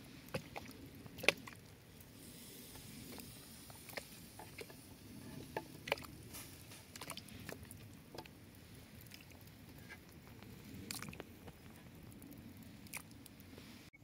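Whole vegetables dropped into a cast-iron pot, landing with irregular sharp knocks and clicks, the loudest about a second in, over a wood fire crackling beneath the pot.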